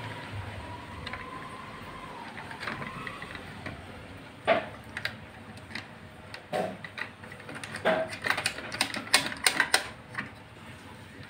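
Metal and plastic parts of a quartz table clock clicking and knocking as the clock head is handled and fitted onto its statue stand. A few separate sharp clicks are followed by a quick run of louder clicks near the end.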